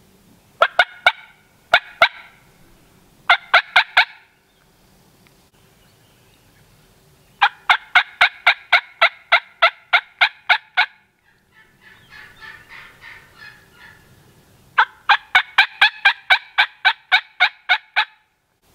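Turkey calling: three short bursts of quick, sharp notes, then two long runs of loud, evenly spaced notes about four a second, with a fainter, rougher stretch between them.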